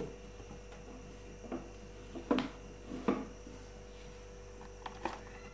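Pressure cooker lid being fitted and closed: a handful of light metal clicks and knocks, the loudest a little over two seconds in, over a faint steady hum.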